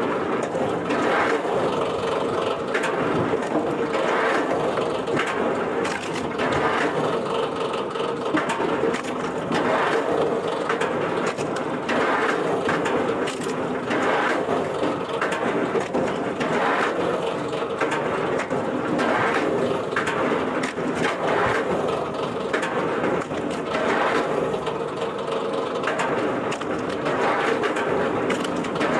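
Wood-processing machine running steadily with a constant hum, while wood crunches and cracks in repeated strokes about once a second.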